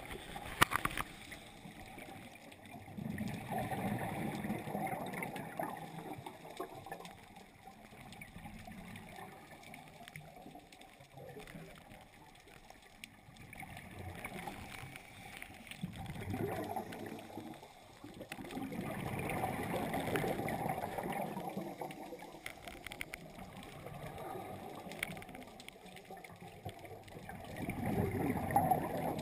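Scuba diver breathing through a regulator underwater: exhaled bubbles gurgling in swells every several seconds, with quieter stretches between breaths.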